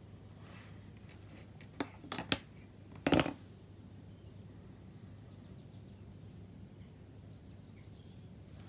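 Small plastic model-kit parts clicking and tapping as they are handled: a few light clicks about two seconds in and a louder cluster just after three seconds, over a low steady hum.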